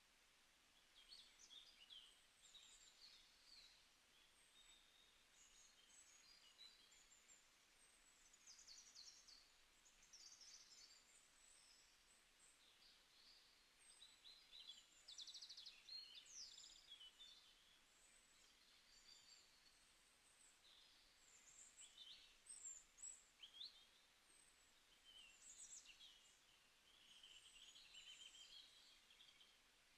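Faint birdsong: many short, high chirps and trills following one another, over a soft hiss.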